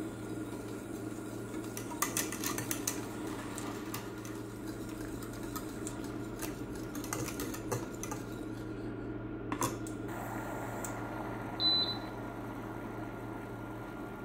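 Wire whisk clicking and scraping against a stainless steel saucepan as cream and brown sugar are stirred, in irregular runs of quick taps, over a steady background hum. A brief high beep sounds near the end.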